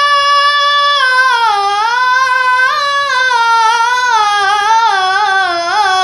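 A boy singing a naat solo and unaccompanied. He holds one long high note for about a second, then runs into a wavering melismatic passage that slides gradually lower.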